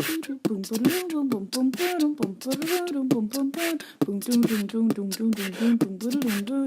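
Beatboxing: a voice hums a wordless tune while sharp percussive mouth hits and clicks keep a beat.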